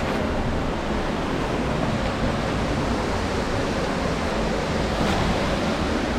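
Steady rush of flowing creek water, an even hiss with no change in level.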